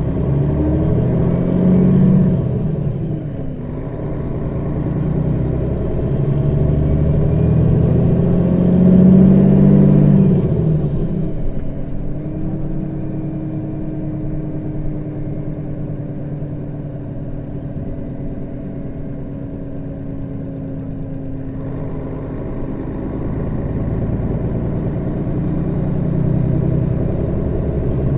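Setra S 315 NF city bus with a manual gearbox under way: the engine pulls under load, its speed drops and climbs again about three seconds in at a gear change, then it pulls louder. Through the quieter middle a steady whine runs for about ten seconds, and the engine rises again near the end.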